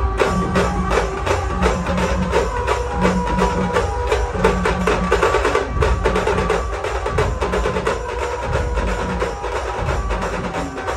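Loud DJ dance music played over a large outdoor sound system, with a fast, even percussion beat of sharp clicky hits and heavy bass underneath.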